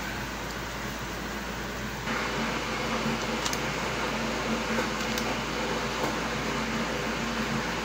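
Steady fan-like whir and hiss of kitchen background noise, stepping up in level about two seconds in, with two faint crinkles from a plastic spice packet being handled.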